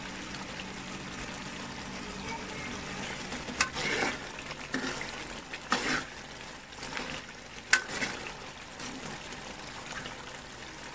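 Chicken and potato biryani masala sizzling in a large aluminium pot while a metal ladle stirs it, scraping and clinking against the pot a few times.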